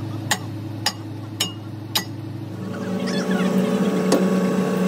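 Regular hammer blows on metal, about two a second, over a steady machine hum. About two and a half seconds in the sound changes abruptly to a different steady machine hum, with one more knock near the end.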